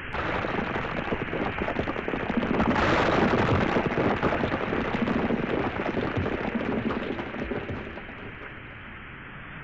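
A large boulder and loose rock sliding and crashing down a slope as an excavator pulls them loose: a dense clatter of many impacts. It starts suddenly, is loudest about three seconds in, and dies away near the end.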